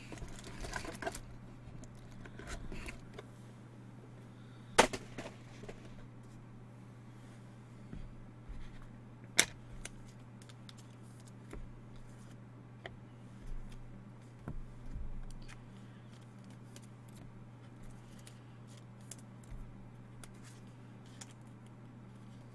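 Scattered sharp clicks and taps of small hard objects being handled on a tabletop, two of them loud, one about five seconds in and one about nine seconds in, with fainter ticks between, over a steady low hum.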